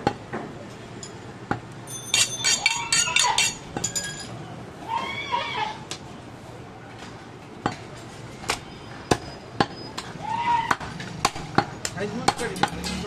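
A butcher's large knife chopping goat meat and striking a wooden log chopping block: sharp knocks at irregular intervals, with a quick run of clinks about two seconds in. High-pitched voices rise and fall in the background a few times.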